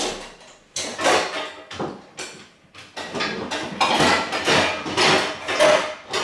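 Pots and pans clanking and knocking together as a pan is dug out of a crowded kitchen cupboard, in a run of irregular clatters that grows busier about a second in.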